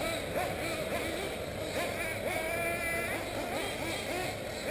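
Several 1/8-scale nitro RC buggies racing, their small two-stroke glow engines revving up and down in overlapping high whines that keep rising and falling in pitch.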